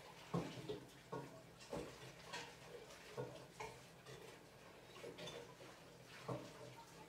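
Faint, irregular clicks and light knocks, about a dozen, of kitchenware being handled at a kitchen sink.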